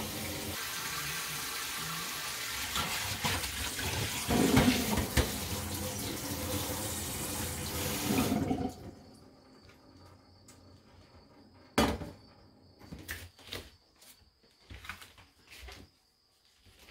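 Kitchen tap running into a sink for about eight to nine seconds, then shut off. A few sharp knocks follow, the loudest about twelve seconds in.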